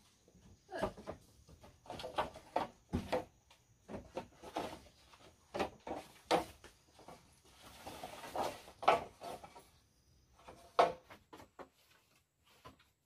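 Irregular hollow knocks and clatter of bamboo poles being handled and set down, with a rustling scrape about eight seconds in.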